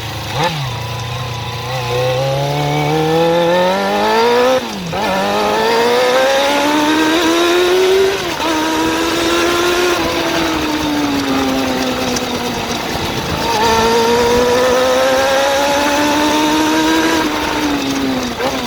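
Suzuki GSX-R400 inline-four motorcycle engine under throttle. Its pitch climbs steadily over several seconds and drops sharply, about five seconds in and again about eight seconds in. After that the revs sag and rise more gently.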